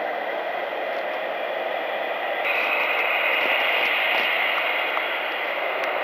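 Airbus A319's twin jet engines at takeoff thrust during the takeoff roll: a steady rushing noise that gets louder about two and a half seconds in as the jet comes closer.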